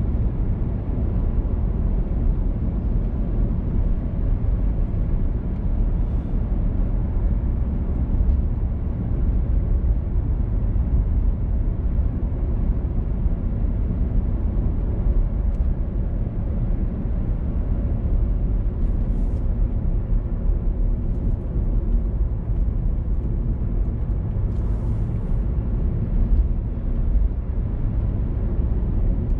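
A car driving along a road: a steady low rumble of tyres and engine, with no change throughout.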